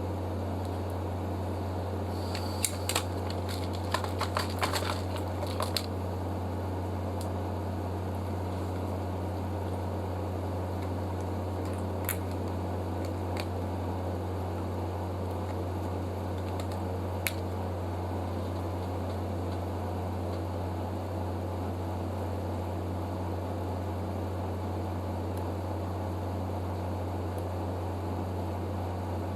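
Steady fan-like motor hum. A quick run of small clicks and taps comes a few seconds in, and two single clicks come later.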